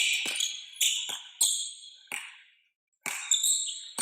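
Basketball game on an indoor court: sneakers squeaking and a ball bouncing, in sharp repeated hits with high squeals, with a brief break to silence about two-thirds of the way through.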